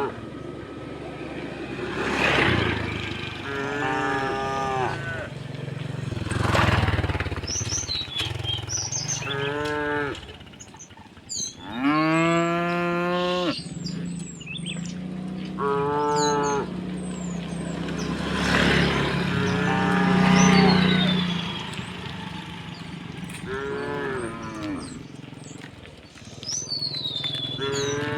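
Cattle mooing again and again, about seven calls with gaps between them, the longest and loudest a little after ten seconds in. Birds chirp in the background.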